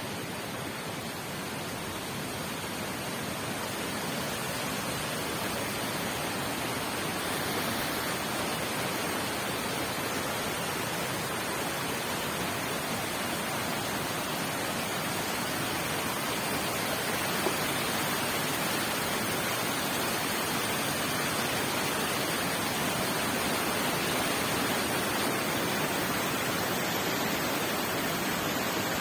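Floodwater rushing in a torrent over rocks and debris, a steady roar of water that grows a little louder a few seconds in.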